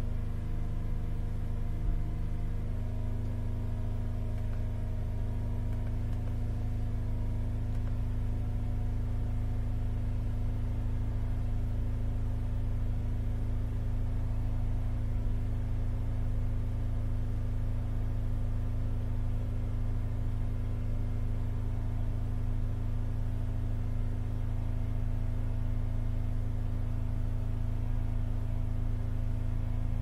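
Holden Captiva 3.0 V6 engine running steadily at held-up revs, heard from inside the cabin. It runs rough on only three cylinders: cylinders 2, 4 and 6, a whole bank, are dead and do not fire.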